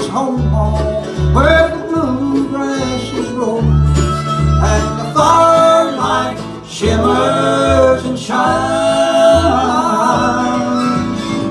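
Live bluegrass band playing an instrumental break of the song: fiddle, five-string banjo, mandolin, acoustic guitar and upright bass, with the bass notes keeping the beat.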